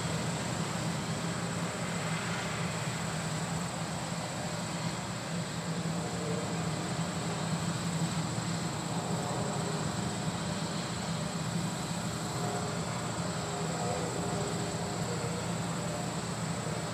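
John Deere combine harvester running steadily while harvesting corn: an even, unbroken low machinery drone with a thin high whine over it.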